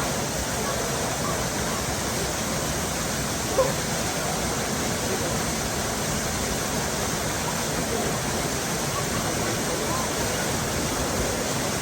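Waterfall rushing steadily, an even wash of falling water, with one brief knock about three and a half seconds in.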